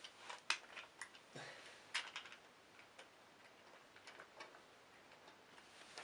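Faint, irregular clicks and taps of a Bachmann Spencer model locomotive and its tender being handled and set onto model railway track, with a couple of sharper knocks about half a second and two seconds in.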